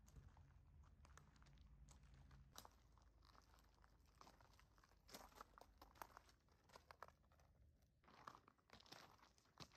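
Faint footsteps crunching on gravel, irregular, coming in clusters about five and eight seconds in.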